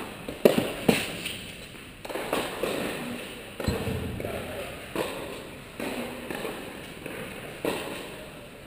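Tennis balls being struck and bouncing on an indoor court: a string of sharp, irregular knocks that echo in the large hall, with faint voices underneath.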